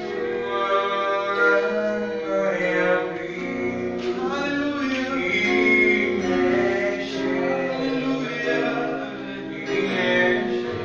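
Gospel worship song: a man singing long held lines over instrumental backing.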